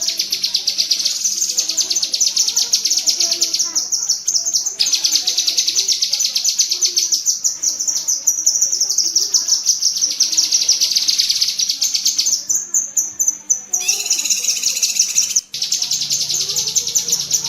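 Cucak kinoi singing its 'tembakan' chatter: a dense, rapid, high-pitched rattle of harsh notes that runs almost without pause, with brief breaks about 4, 13 and 15 seconds in.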